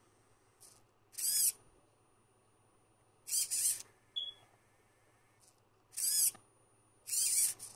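Hobby servo motors in a metal-bracket robotic hand whining in four short bursts as they drive the fingers. Each burst is a high whine that rises and then falls in pitch.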